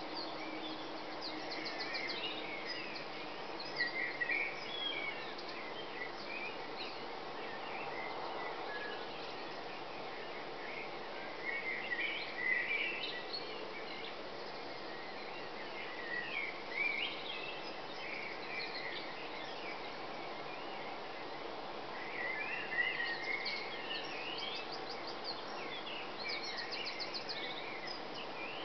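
Dawn chorus: many birds singing over one another, short chirps and trills coming and going, with louder phrases about 4, 12, 17 and 23 seconds in, over steady background noise.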